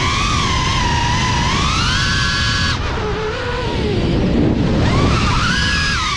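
FPV racing quadcopter's brushless motors whining, the pitch sliding up and down with the throttle. About three seconds in the whine drops low as the throttle is cut for a dive, then climbs back up about five seconds in, over the rush of wind and prop wash.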